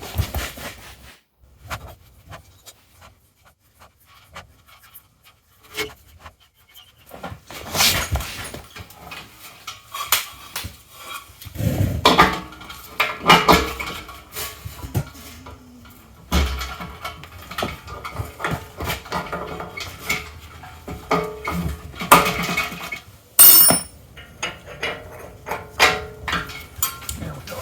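Intermittent clinks, knocks and rattles of metal tools and scooter parts being handled during work on a Vespa's front hub, with a brief metallic ring about 23 seconds in.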